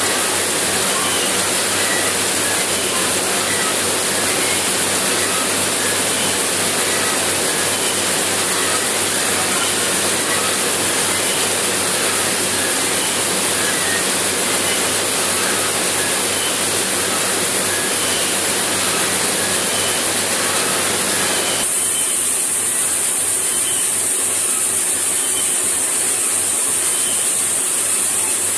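Seed processing plant machinery running: a steady, even rushing noise with a strong high hiss. About three quarters of the way through it changes abruptly to a thinner, hissier sound.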